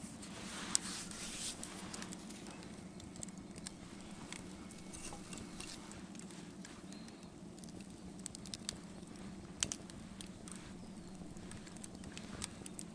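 Wood campfire crackling, with irregular sharp pops and snaps, over a steady low hum.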